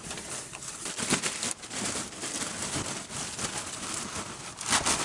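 Clear plastic wrapping crinkling and rustling as it is pulled and bunched off a freshly unrolled, expanding compressed mattress, louder near the end.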